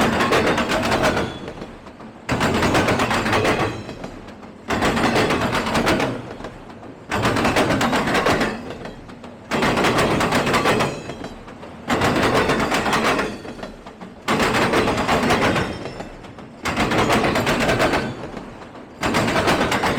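Freight train rolling past, its wheels clattering over the track in a regular rhythm: a sudden burst of rapid rattling clicks about every two and a half seconds, each fading before the next.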